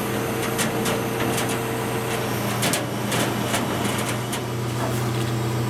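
Crane truck engine running steadily with a low hum, with scattered light knocks and clanks on top.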